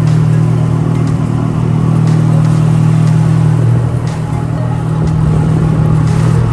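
An engine running at a steady speed, a constant low drone, dipping slightly in loudness about four seconds in.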